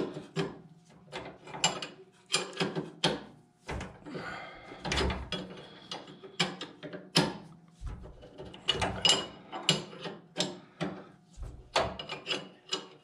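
Wrench clinking on a bolt as it is set on, turned a little and reset again and again: a string of irregular sharp metal clicks and taps, about one or two a second.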